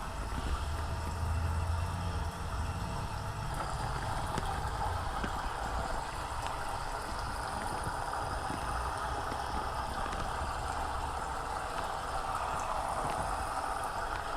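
A car driving on a snowy, slushy road: steady tyre and road noise with a low rumble, the rumble heaviest in the first couple of seconds.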